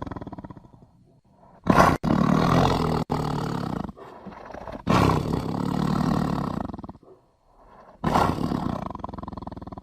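Tiger roaring: the tail of one roar fades out at the start, then three long roars follow, each lasting about two seconds, with short quiet gaps between them.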